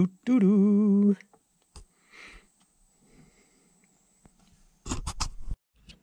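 A man hums a short wordless tune, "do-do-do", for about a second. Then it is quiet apart from a faint click, until a quick cluster of clicks and knocks near the end.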